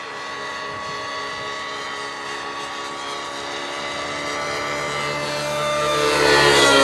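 Align T-Rex 700 radio-controlled helicopter in flight: a steady whine of its main rotor and drivetrain, growing louder toward the end, where the pitch bends.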